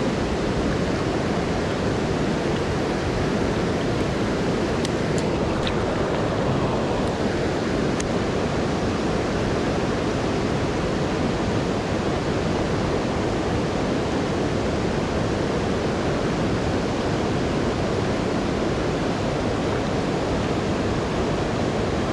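Steady rushing of fast river water, a loud even roar with no change in level throughout. A few faint ticks come through about five to eight seconds in.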